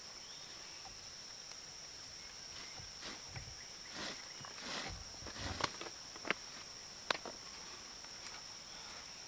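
Jute rope rustling and rubbing as it is looped and knotted around the crossbar of a lashed-stick pack frame, with a few sharp wooden clicks and taps from the sticks about halfway through. A steady high-pitched hum sits underneath.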